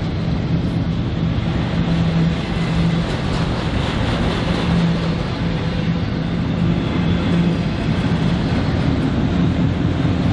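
Diesel-powered freight train running, a steady engine hum over a constant noise of the moving train.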